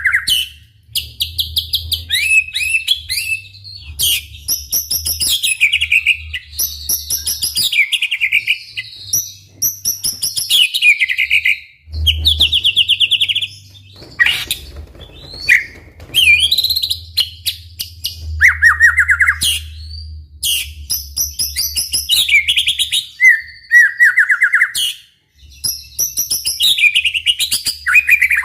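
White-rumped shama (murai batu) singing energetically, a continuous varied song of rapid trills, chattering runs and whistled sweeps, phrase after phrase with only brief pauses.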